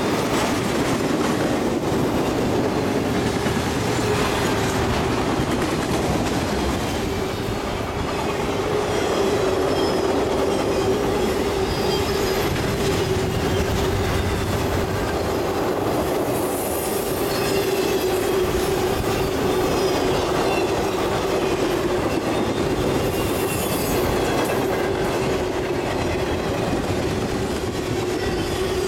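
Freight train cars loaded with trailers and containers rolling past at speed: the steady rumble of steel wheels on rail, with a constant hum beneath and short high wheel squeals now and then.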